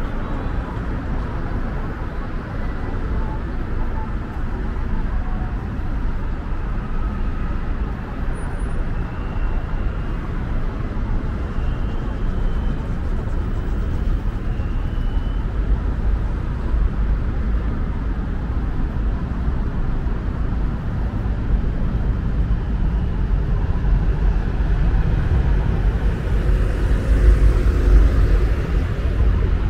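City street traffic noise: a steady low rumble of passing cars, swelling for a moment near the end.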